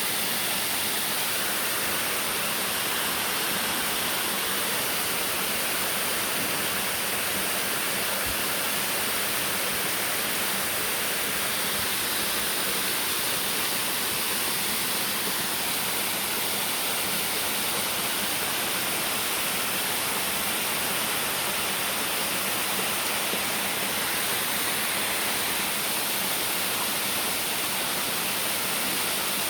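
Waterfall: water pouring and crashing in a steady, even rush.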